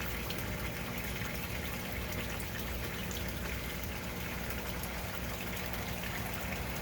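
Steady rush of water circulating in an aquaponics tank, with a low pump hum underneath.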